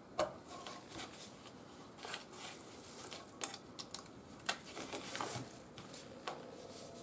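Handling noise from a small metal-cased laser stage light: scattered light clicks and knocks as it is picked up, turned over and set down on a table, and its power cable is plugged in and moved about.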